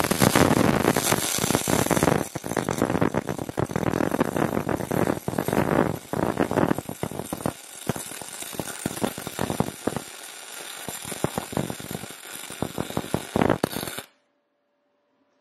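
MIG welding arc from a YesWelder MIG 250 Pro on 10 mm (3/8 inch) steel plate: a loud, dense crackle that starts suddenly. In the second half it breaks into shorter bursts with brief gaps, and it cuts off suddenly near the end.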